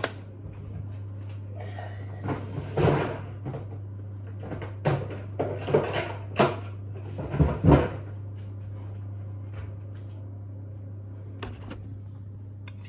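A run of knocks and clatters from kitchen handling: a door banging open and shut and a foil tray of seasoned chicken wings being moved, over a steady low hum.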